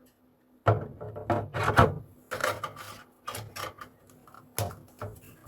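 Irregular knocks, clicks and scrapes of a cordless tool battery and its charger being handled, starting about a second in.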